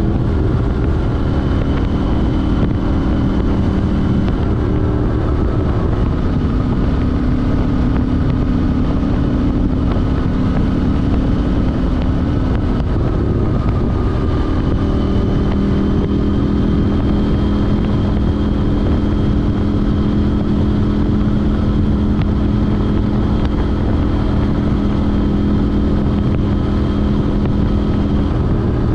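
KTM 790 Duke's parallel-twin engine through an Arrow Race-Tech exhaust and de-cat pipe, riding at steady revs over wind and road rumble. The engine note shifts twice, around five seconds in and again around thirteen seconds in.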